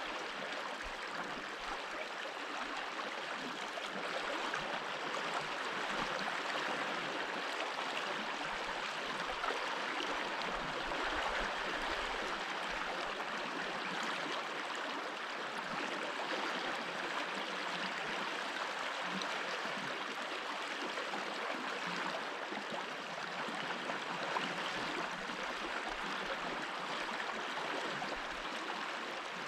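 Stream water running steadily over stones, a continuous babbling rush with no letup.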